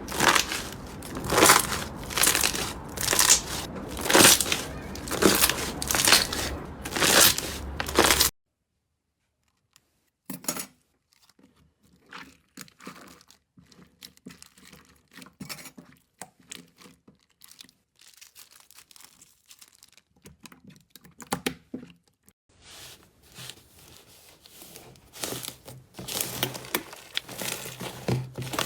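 Slime being worked by hand, crackling and tearing in loud bursts about once a second. After a sudden break come scattered quieter clicks and pops, and near the end the crackling builds up again.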